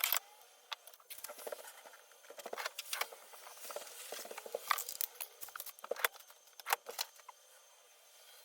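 Irregular small plastic clicks and taps from hands working on a custom mechanical keyboard, with a few louder clicks scattered through.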